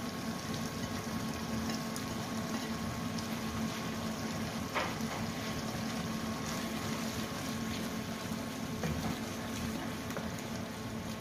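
Chicken curry in tomato and yoghurt gravy simmering over low heat in a non-stick wok, a steady soft bubbling, with a couple of faint clicks and a wooden spatula stirring through it near the end.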